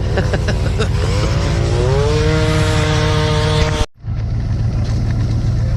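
Airboat engine running with a steady low drone. About a second in its pitch rises and then holds as it revs up. Near four seconds the sound cuts out briefly and comes back.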